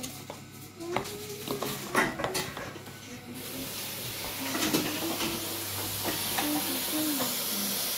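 A few clinks and knocks of bowls and utensils, then, about three and a half seconds in, a kitchen tap turns on and water runs steadily into the sink.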